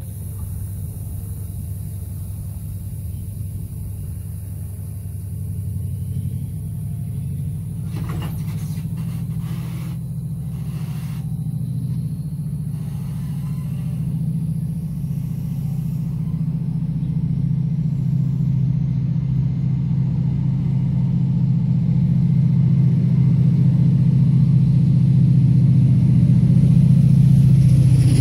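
Class 68 diesel-electric locomotive's V16 engine working hard as the train pulls out, a deep steady drone that grows louder as the locomotive draws near. A few clicks from the passing coaches come about a third of the way in.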